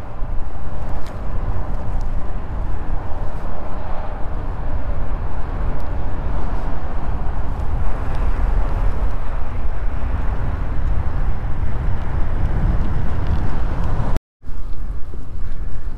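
Wind buffeting a GoPro's microphone, mixed with the rolling noise of an electric mountain bike being ridden: a steady, heavy low rumble. It cuts out for a split second near the end.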